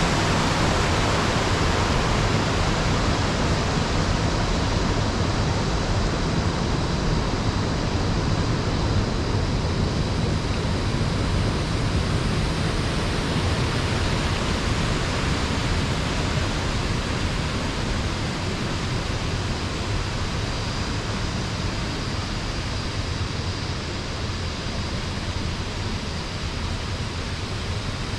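Steady rushing noise of Laxapana Falls, a 126 m waterfall, falling water heard close to its base, growing slightly quieter over the last third.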